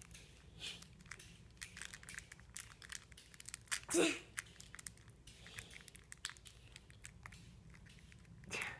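Soft, irregular crinkling and crackling of a foil blind-bag toy wrapper being handled and opened, with one brief louder sound about four seconds in.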